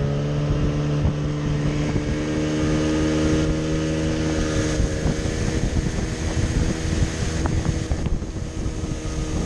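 Boat motor running at a steady pitch, with wind buffeting the microphone; the engine tone softens about five seconds in, leaving mostly wind noise.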